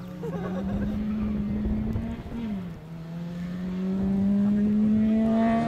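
Small hatchback's petrol engine, a Nissan Micra, accelerating hard between tyre chicanes. Its pitch climbs, drops briefly about two and a half seconds in, then climbs again and grows louder as the car approaches.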